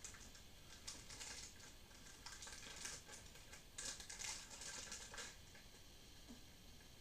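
Faint, intermittent rustling and crinkling of plastic wrapping and cardboard packaging, with light clicks, as small plastic toy parts are handled and taken from the box insert.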